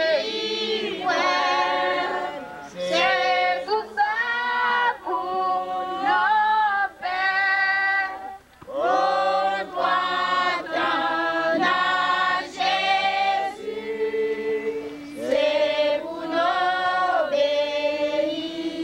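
A congregation of men and women singing a hymn together without accompaniment, in long held phrases with short breaks between them.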